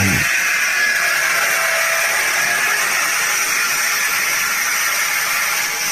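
Enclosed automatic machine tool running: a steady, loud hiss and whir, with cutting fluid spraying inside the guard. A brief low thump comes right at the start.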